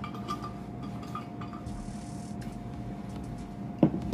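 Small clinks and clicks of someone eating fried chicken, over a steady low hum. Near the end, one short, loud falling vocal sound.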